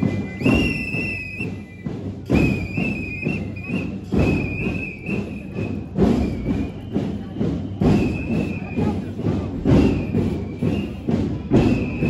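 A drum beaten slowly and steadily, one heavy thump about every two seconds with lighter knocks between. A high, wavering whistle-like tone sounds over the beats.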